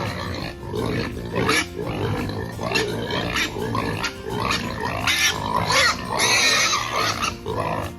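Hungry pigs squealing and grunting at feeding time, with a long, loud squeal about six seconds in.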